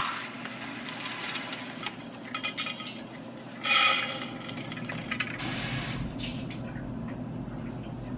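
Stainless steel measuring cups and pots clinking as rice is measured out. There is a sharp clink at the start, a few light clicks, and a louder ringing metallic clatter about four seconds in.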